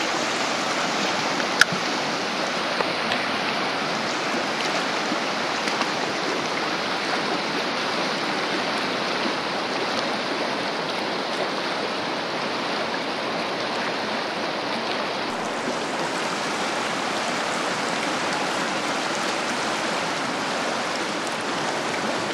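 Fast, riffled river current rushing steadily over a shallow drift. About a second and a half in there is a single sharp click.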